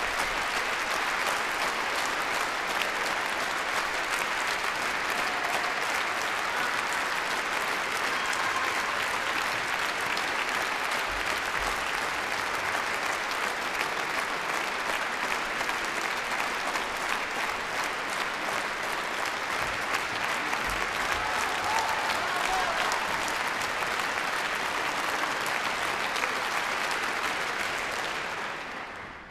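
Audience applauding steadily in a concert hall, the clapping dying away near the end.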